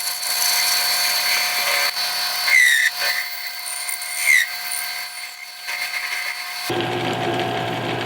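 Lathe parting tool cutting into spinning aluminium stock: a steady scraping hiss over a high whine, with two brief squeals from the tool, about two and a half and four and a half seconds in.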